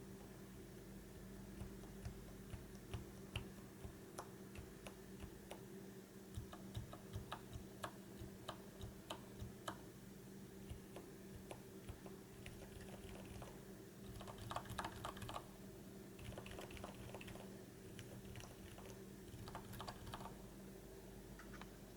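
Faint clicks of silent mechanical keyboard switches being pressed: single keystrokes at first, then short bursts of quick typing about halfway through and again near the end.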